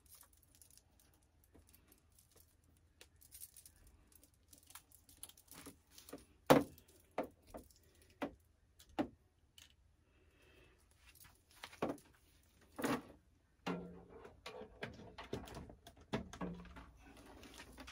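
Scattered sharp clicks and taps of handling a plastic-wrapped Shark air purifier, the loudest about six and a half seconds in, with a faint muffled sound near the end.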